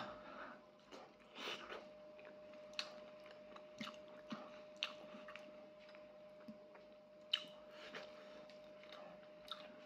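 Faint, close chewing and mouth smacks from a person eating by hand, with scattered small clicks. A faint steady hum runs underneath.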